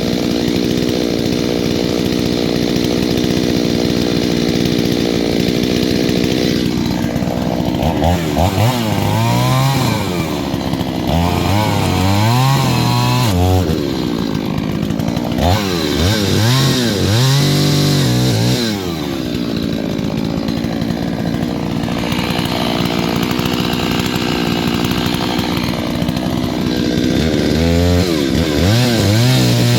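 New Holzfforma G388 72cc two-stroke chainsaw being run in, running steadily at first, then throttled up in four bursts from about eight seconds in. Each burst rises and then falls in pitch as the saw cuts through wood.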